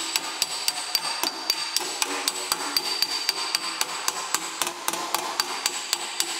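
Body hammer tapping a sheet-metal motorcycle fender against a hand-held dolly behind it, about four light, even blows a second with a high metallic ring. The blows glance off the panel to smooth the dent out without stretching the metal.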